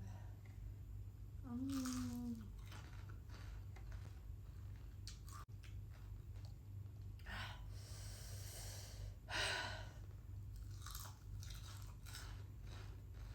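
Close-miked chewing and crunching of crispy fried chicken, in irregular bites with one louder crunch about two-thirds of the way through. A short hummed voice sound comes about two seconds in, over a steady low electrical hum.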